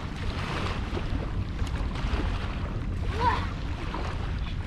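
Wind buffeting the microphone over surf washing on the beach: a steady rumbling rush with no break.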